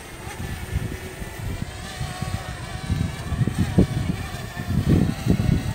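Wind buffeting the phone's microphone in uneven gusts, a low rumble that grows stronger after about three seconds.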